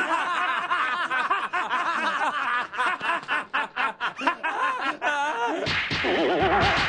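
Several men laughing together, snickers and chuckles overlapping, turning fuller and deeper about six seconds in.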